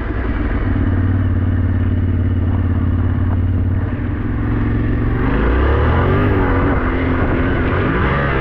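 Yamaha Ténéré 700's parallel-twin engine running steadily under way. About five seconds in, the engine note drops and then rises and falls as the throttle changes.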